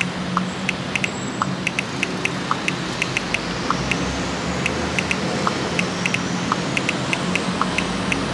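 Steady city ambience: a distant traffic rumble with a low hum. Over it runs a string of short, light clicks, often in quick pairs, a few every second.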